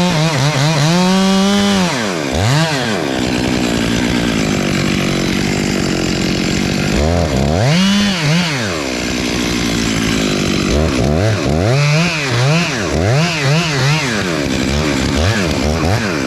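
Chainsaw revving up and down: a long rev at the start, a steadier, lower stretch in the middle, another big rev about eight seconds in, then a run of short, quick revs near the end.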